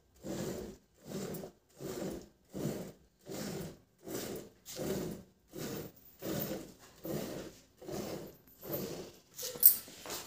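Hand-milking a buffalo into a steel pail: rhythmic squirts of milk hitting the foaming milk already in the pail, about three every two seconds. A sharp metal clank near the end as the pail is lifted.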